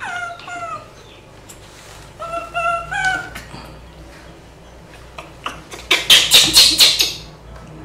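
Baby macaques calling with short, pitched whimpering coos, then a louder, harsh stretch of screeching about five and a half seconds in.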